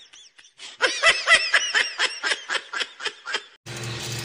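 Laughing sound effect: a rapid run of high-pitched "ha-ha" laugh pulses, about five or six a second, that cuts off suddenly near the end, leaving a steady low hum.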